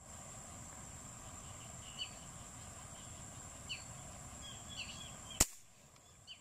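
A single sharp shot from a Manlapat airgun firing a line-tethered fish spear into the water, about five and a half seconds in. Under it run a steady high insect whine and a few short bird chirps.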